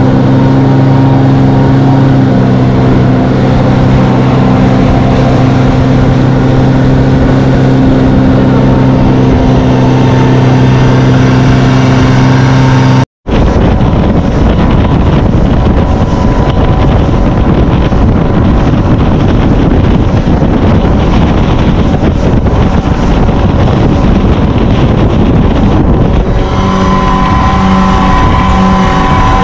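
Small motorboat's engine running at cruising speed, with wind and water rushing past the hull. The sound cuts out for an instant about halfway through, after which the rushing is stronger than the engine until the engine tone comes back clearly near the end.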